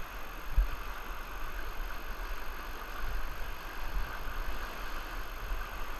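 White-water river rapids rushing steadily around a kayak, with a few brief low thumps.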